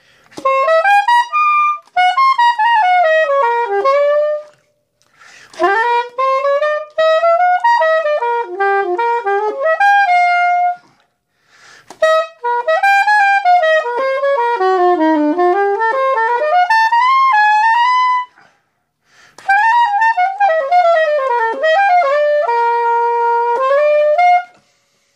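Straight soprano saxophone playing a fast jazz blues solo line with no accompaniment, a tenor saxophone solo transcribed onto soprano. It comes in four quick phrases with short gaps between them, the last ending on a held note.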